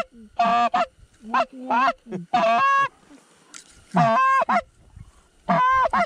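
Hand-blown goose call sounding about six Canada goose honks, each a low note breaking sharply up to a higher one, loud and close.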